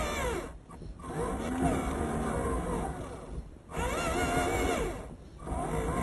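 A 1:10 scale RC offroad model's electric motor and gears whining close to the microphone, the pitch wavering up and down with the throttle. It cuts out briefly three times: about half a second in, around three and a half seconds, and around five seconds.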